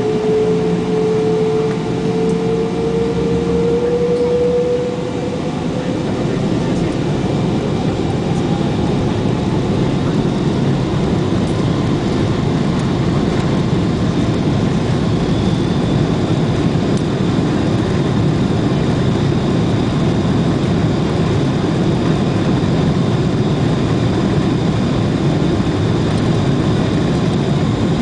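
Boeing 777 jet engines spooling up for takeoff: a whine rising in pitch over the first few seconds, then a steady loud rumble through the takeoff run.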